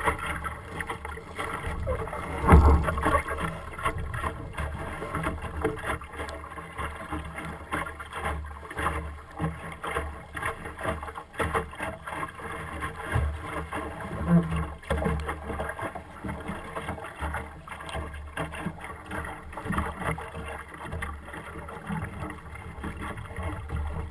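Optimist sailing dinghy under way in choppy water: a steady noisy wash of water against the small hull, a low rumble and many irregular knocks and rattles. The loudest is a single thump about two and a half seconds in.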